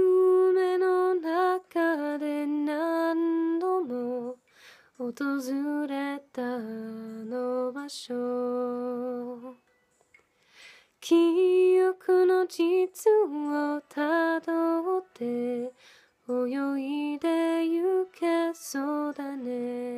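A young woman singing unaccompanied: a slow melody of held notes that step up and down, in phrases broken by three short silent pauses for breath.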